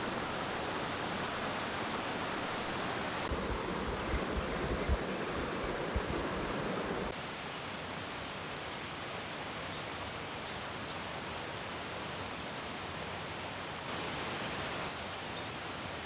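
Mountain stream rushing over boulders, a steady wash of water. It is louder for the first several seconds, with a few low thumps, and drops to a quieter, more distant rush about seven seconds in.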